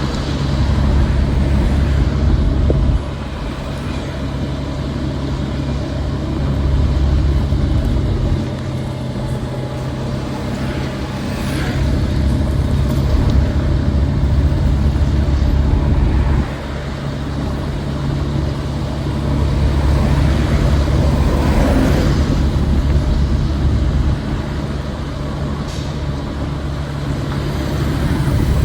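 City street traffic: motor vehicles running and passing. The low rumble swells and falls away several times, dropping off suddenly twice.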